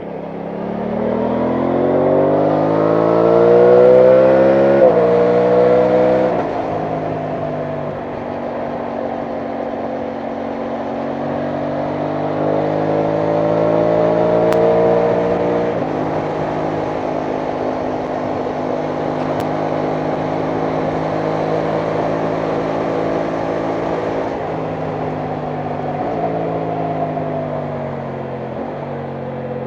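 Aprilia Tuono 660 Factory's parallel-twin engine pulling through the gears: the pitch climbs and drops sharply at upshifts about five seconds in and again around sixteen seconds, with steady cruising between. Near the end the revs fall away and then climb again. Wind noise runs underneath.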